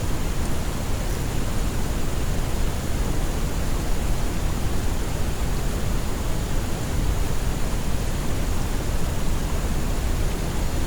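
Steady, even hiss of soft white noise, fuller in the low end than in the highs.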